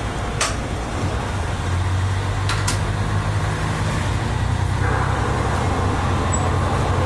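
Diesel railcar's engine droning under power as the train pulls away from a station, heard from inside the cab; the drone strengthens a little about two seconds in and again near the end. A few sharp clicks sound about half a second in and twice around two and a half seconds in.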